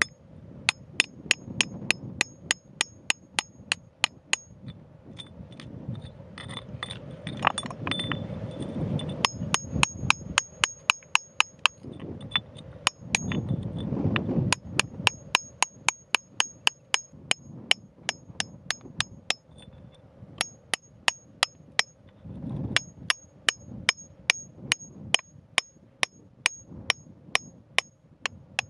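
A pointed steel digging tool striking stony, gravelly ground in quick, even strokes, about three to four a second, each with a short high metallic ring, to loosen soil around a purple crystal. Loose gravel scrapes between strikes, and the strokes pause briefly a few times.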